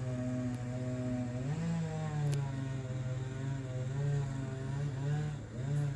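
Chainsaw running under load as it cuts through the birch trunk, its pitch rising and falling slowly as the throttle and the bite in the wood change.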